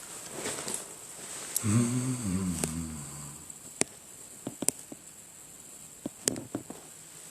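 A short, low, wordless hum from a man's voice about two seconds in, followed by scattered sharp clicks and taps, as a microphone is set up and tested.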